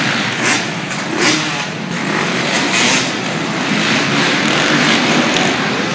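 Motocross dirt bike engines revving and accelerating around the track, over a steady noisy background.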